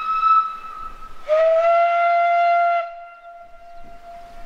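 Steam whistles of a Beyer-Peacock 2-4-0T tank locomotive on the Isle of Man Steam Railway. A higher-pitched whistle ends about half a second in. About a second later a louder, lower-pitched whistle sounds for about a second and a half, then dies away.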